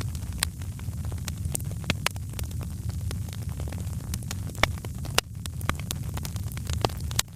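Wood fire crackling, with irregular sharp pops and snaps over a steady low rumble; a few louder pops stand out about halfway through and near the end.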